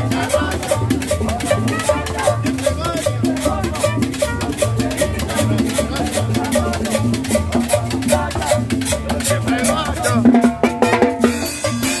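Live Latin dance music from a street band: congas and timbales drive a steady, rhythmic low beat, with trumpet lines over it.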